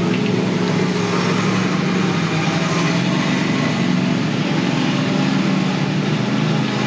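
Vehicle engine running steadily at a constant pitch, with no revving, over a steady hiss.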